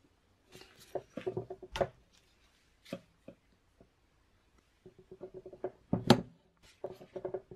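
Small metal fork parts clicking and knocking as the rebound damper's bottom piece and washer are worked onto the damper shaft and pushed into the RockShox Reba fork stanchion against spring tension. There is a spell of rapid clicks about a second in, another from about five seconds, and a sharper knock about six seconds in.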